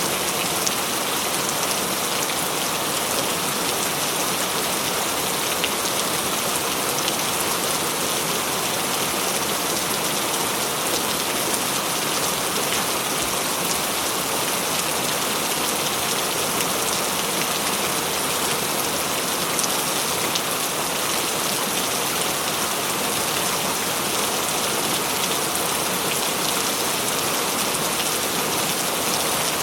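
Heavy rain falling steadily and loudly, a dense hiss of drops with many fine individual patters.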